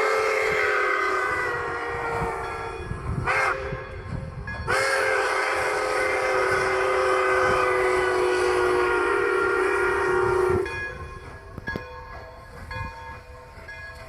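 Pere Marquette 1225 steam locomotive's chime whistle blowing a chord of several notes: a long blast, a short one about three seconds in, then a long blast that cuts off about ten and a half seconds in, in the pattern of a grade-crossing signal.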